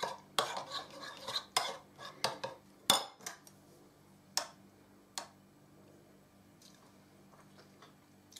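A metal spoon stirring thick sauce in a china bowl, scraping and clinking against the china in a quick run for about three seconds. Two single clinks follow, a second or so apart.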